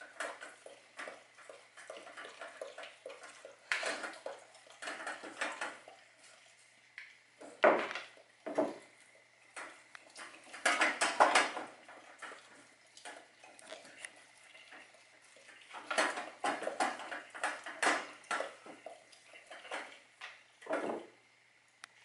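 A dog eating frozen raw chicken from a stainless steel bowl: irregular clanks and scrapes as the frozen meat and its muzzle knock against the metal bowl in its wire stand, coming in clusters with a louder clatter about halfway through.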